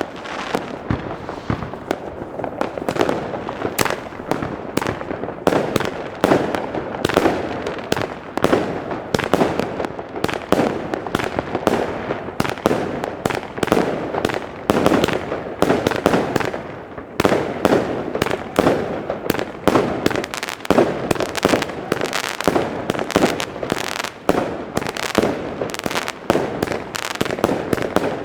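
Iskra Okazija firework battery firing a dense, continuous barrage of rapid bangs and crackles, with no pauses.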